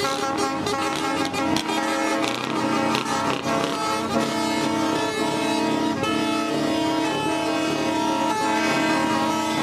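Truck air horns blaring in long held tones, several pitches sounding at once like a chord.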